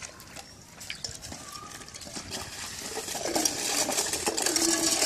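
Broom bristles scrubbing a wet tiled floor in quick strokes, the scrubbing growing louder. From about two-thirds of the way in, a steady drawn-out drone joins it.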